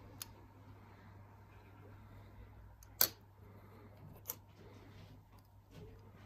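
Clear plastic coin capsules clicking against the table and each other as they are set down and picked up: a few sharp clicks, the loudest about three seconds in, over a faint steady hum.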